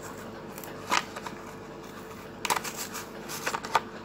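Plastic blister pack and cardboard backing card of a Hot Wheels car being handled: one sharp click about a second in, then a quick cluster of crinkles and clicks from about halfway through, over a faint steady hum.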